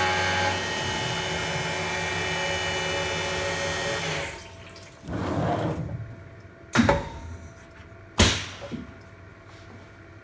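Grizzly G0704 benchtop CNC mill's roughly 1 hp spindle milling aluminium under coolant, running steadily for about four seconds and then stopping. A short hiss follows, then two sharp clunks about a second and a half apart.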